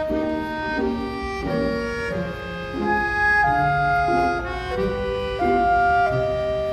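Background music: a gentle instrumental melody of held notes, with reedy or bowed-string tones.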